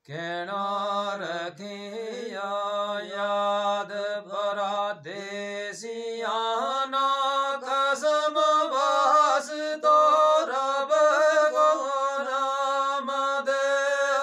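A man's voice chanting a verse unaccompanied, in long held melodic notes; about six seconds in the melody steps up to a higher pitch and stays there.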